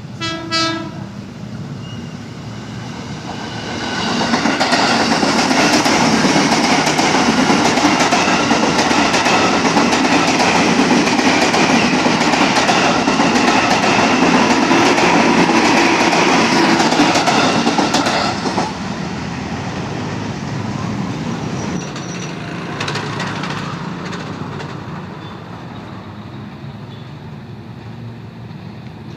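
Ex-JR 205 series electric commuter train approaching with a short horn toot about half a second in, then running past loudly from about four seconds in for some fourteen seconds. The noise drops sharply when it is gone and fades away as it recedes.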